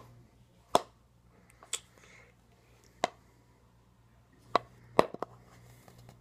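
A tin of Skoal long cut dip with a metal lid being packed: about six sharp taps on the can at uneven intervals, two of them close together near the end, to knock the tobacco against the lid.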